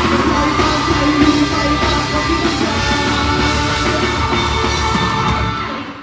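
Live rock band playing through stage speakers: electric guitars, drums and singing, dying away near the end.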